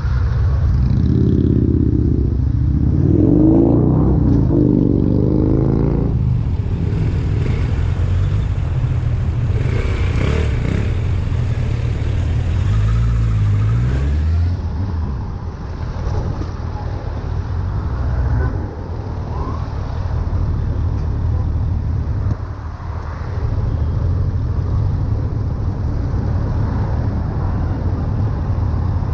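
Suzuki GSF1200 Bandit's inline-four engine running under way in slow traffic, rising in pitch as it accelerates a couple of seconds in.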